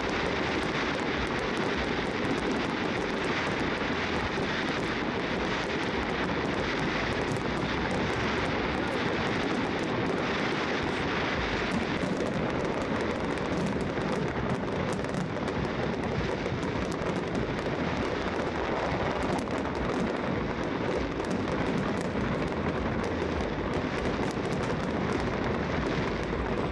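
Fireworks going off in quick succession, the bangs and crackles of many shells running together into a steady rumble.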